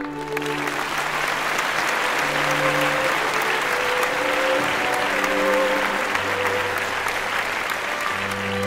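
Audience applause with slow, held music notes underneath. The applause starts suddenly and fades near the end as the music comes up.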